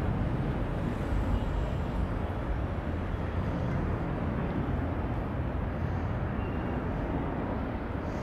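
Distant, steady rumble of a Nepal Airlines Airbus A320's jet engines on its take-off roll, slowly fading as the airliner moves away down the runway.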